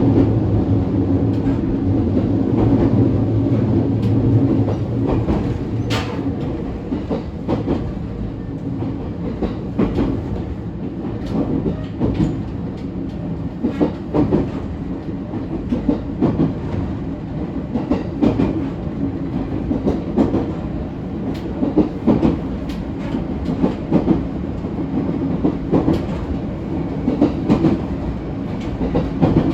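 ET127 series electric multiple unit with Toyo IGBT-VVVF traction equipment running along the line, a steady motor hum that drops away about four seconds in. From then on the wheels knock over rail joints in a clickety-clack.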